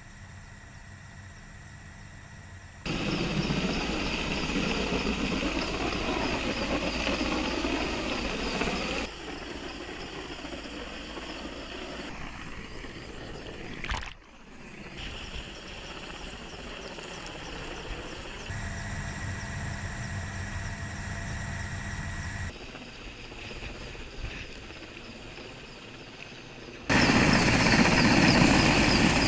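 Hovering helicopter's rotor and engine noise, jumping abruptly in loudness several times as the shots change, with one sharp splash of water about halfway through.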